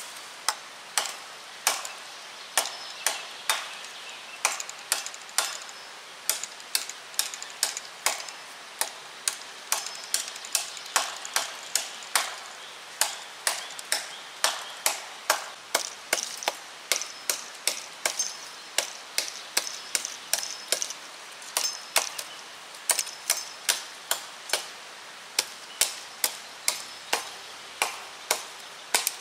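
Ontario Old Hickory kitchen knife's thin, flat-ground blade chopping into a branch in repeated freehand swings: sharp woody knocks about two a second, with a few short pauses.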